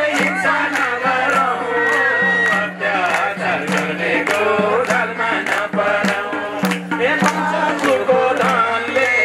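A man singing a Nepali song into a microphone over a regular drum beat, about three strokes a second, and a steady low accompanying tone.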